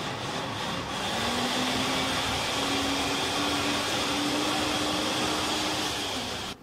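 Electric mixer grinder running, a loud motor hum that climbs a little in pitch over the first couple of seconds, then switched off abruptly near the end.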